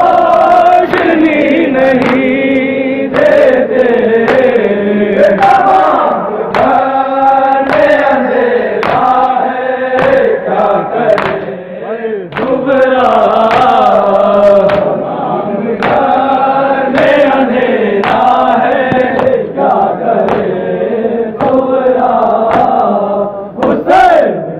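A group of men chanting a nauha, an Urdu lament for Imam Husain, in unison behind a lead reciter, the melody rising and falling in phrases of a second or two. Sharp slaps of matam, hands beating on chests, mark the beat.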